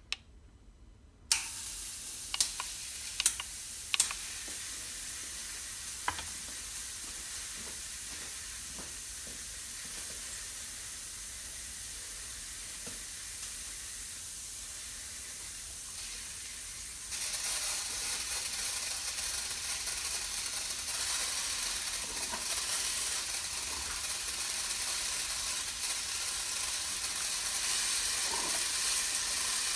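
Steady hiss of compressed air blowing through the graffiti-removal robot's spray guns, switching on suddenly about a second in, with a few sharp clicks in the next few seconds. About halfway through, the hiss steps up louder and holds.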